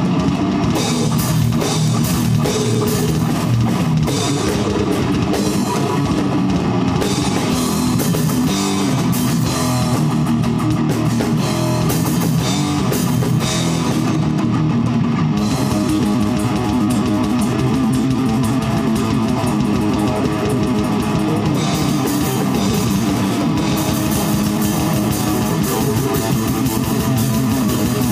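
A metal band playing live: fast drumming on a drum kit with Zildjian cymbals, over distorted electric guitars.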